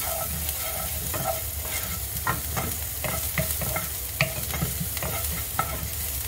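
Wooden spatula stirring chopped onion frying in ghee in a nonstick kadai: short scraping strokes against the pan, about two a second, over a steady sizzle.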